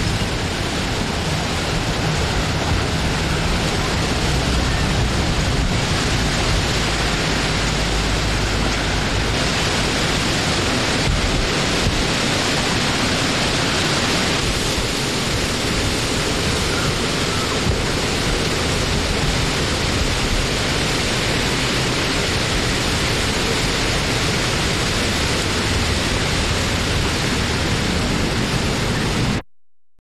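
Steady, dense rushing of blowing wind with no gusts or pauses, cutting off suddenly just before the end.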